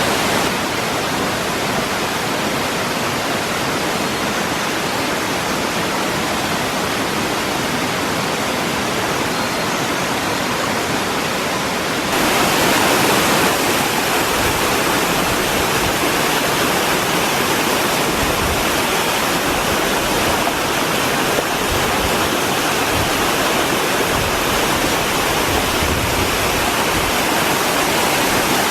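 Waterfall: a steady rush of falling water, getting louder and brighter about twelve seconds in.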